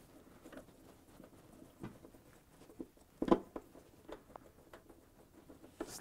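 Faint clicks and scrapes of a refrigerator's sheet-metal rear access panel being lifted and worked loose by hand, with one sharper knock about halfway through.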